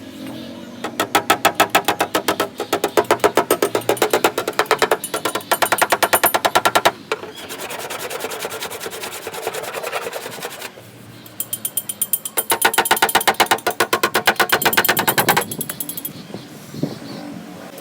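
A powered bodywork tool working on car body metal in bursts of rapid, evenly spaced strikes, about ten a second, stopping and starting twice.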